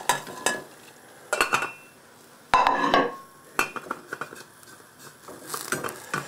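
A stainless steel saucepan and its metal lid clink and knock several times, the loudest clatter a little past halfway. It happens as a plate of paste-covered cork-ball pop-ups is tipped into the boiling pan and the lid is set back on.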